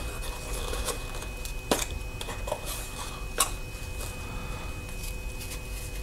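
Hands handling a small cardboard box and drawing a nylon flashlight holster out of it: faint rustling and scraping of card and fabric, with a few sharp clicks, the clearest nearly two seconds in and again just past three seconds.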